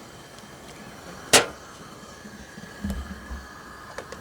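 A single sharp knock about a second in, over a low steady background, with a faint low rumble and a small click later.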